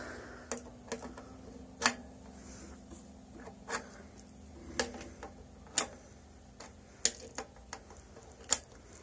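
Irregular sharp metal clicks and taps of hand tools working on a BMX bike's stem and headset bolts as they are loosened, about a dozen over the stretch, a few of them louder.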